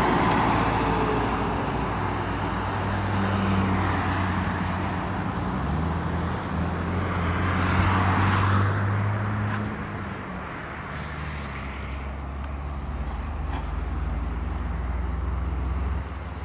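Highway traffic passing: a diesel cargo truck's engine drones with shifting pitch over tyre noise, and a car passes close about eight seconds in. A brief hiss comes about eleven seconds in.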